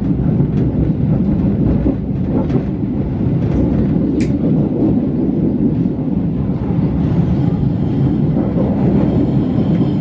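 Passenger train running at speed, heard from inside a coach: a steady low rumble of wheels on the rails, with a few sharp clicks, the loudest about four seconds in.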